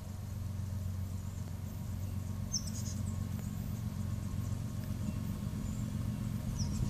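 Union Pacific diesel locomotive approaching: a steady low engine rumble that grows slowly louder.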